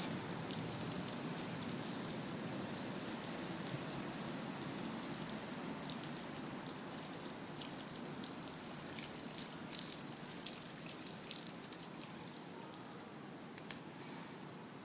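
Water from a garden hose splashing onto a wet towel and a metal drain grating: steady splashing with many small crackling splatters, getting quieter near the end.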